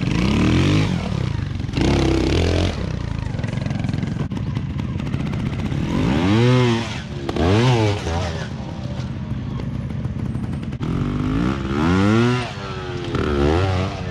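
Beta trials motorcycle engines revving in short throttle blips, each rising then falling in pitch, several times over the steady running of the bikes.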